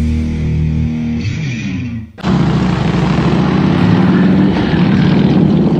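Rock music with guitar for about two seconds, which then cuts out. A motorcycle engine takes over, running loudly and steadily to the end.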